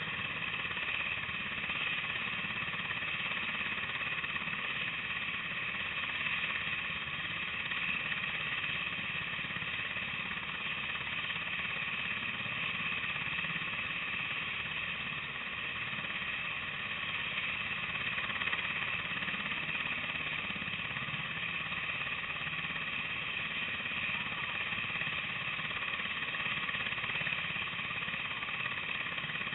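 Sikorsky UH-60 Black Hawk helicopter running on the ground with its rotors turning: a steady high turbine whine over a rough, chopping rotor rumble.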